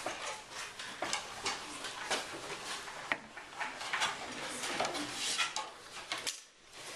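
Classroom desk clatter: pencils, rulers and other small objects knocking and scraping on desktops and paper in irregular clicks. The noise dips briefly near the end.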